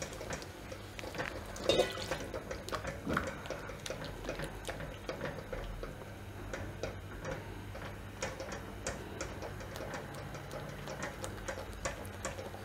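Silicone spatula stirring and scraping a thick butter, flour and milk paste in a metal kadai, with irregular light clicks and knocks against the pan as milk is worked into the roux to keep lumps from forming.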